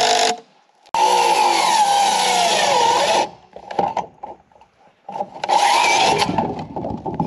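Cordless drill driving screws into wooden form bracing, in two long runs with a short pause between, its pitch wavering as the screw bites.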